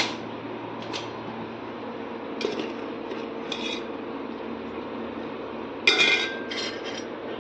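Stainless steel kitchen dishes clinking as they are handled and set down: a few light clinks, then a louder clatter with ringing about six seconds in.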